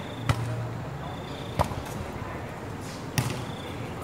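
A volleyball striking a hand or the court floor: three sharp smacks about a second and a half apart.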